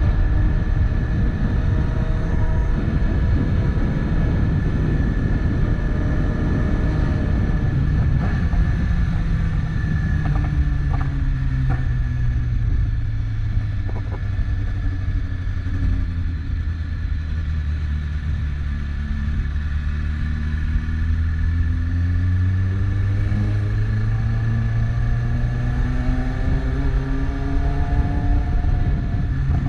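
BMW S1000RR inline-four engine running steadily, its pitch sinking slowly through the first half and climbing again near the end.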